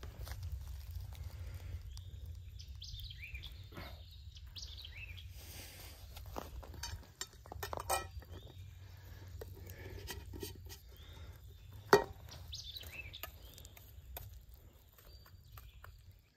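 Small birds chirping in the background a few seconds in and again near the end, with scattered sharp clicks and light taps, the loudest two about eight and twelve seconds in, over a low steady rumble.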